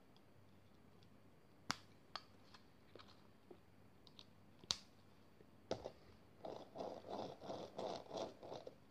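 A few sharp plastic clicks as LEGO wheels are pressed onto a small LEGO vehicle. Near the end, about two seconds of rattling rumble as the toy's plastic wheels roll across a wooden floor.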